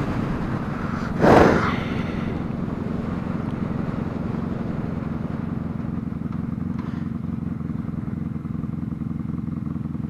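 Honda Magna's V4 engine running steadily as the motorcycle rides along, heard from the rider's seat. A short, loud rush of noise comes about a second in.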